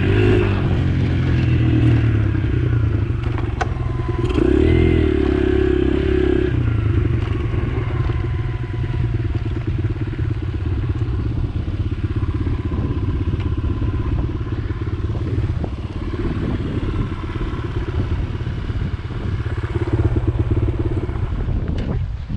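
Motorcycle engine running under way as it is ridden, its pitch rising and falling with the throttle about four to six seconds in.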